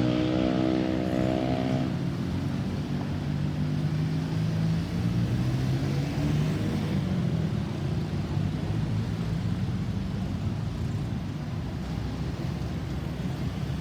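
A motor vehicle engine runs under a steady rushing noise. A steady droning tone with many overtones stops about two seconds in, leaving a lower engine note that rises and falls slightly.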